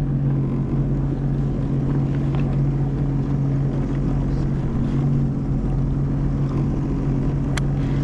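Sea-Doo FishPro jet ski's engine idling steadily, with a sharp click about seven and a half seconds in.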